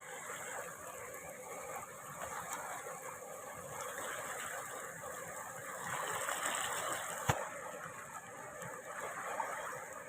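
Natural running water flowing steadily, with one sharp click about seven seconds in.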